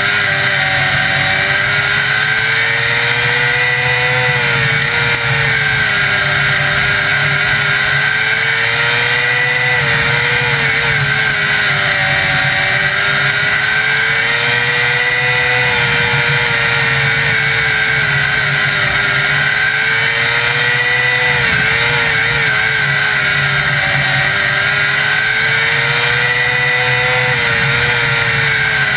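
600cc micro sprint car's motorcycle-derived engine, heard from on board, running hard lap after lap: its pitch climbs along each straightaway and dips as the driver lifts for each turn, about every five to six seconds.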